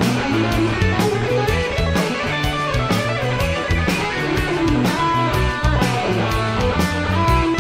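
Epiphone Les Paul Standard electric guitar with humbucker pickups, played as picked single-note lines and chords. Regular sharp hits keep a beat behind the guitar.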